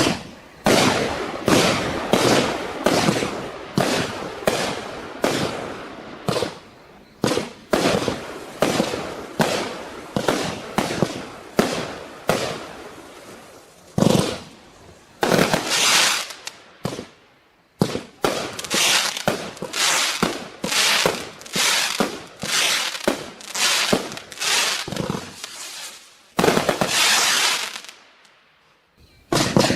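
A 132-shot firework cake (Klasek Pyrotechnology) firing its barrage: sharp bangs in quick succession, about two a second, with a few longer hissing bursts and a brief lull near the end.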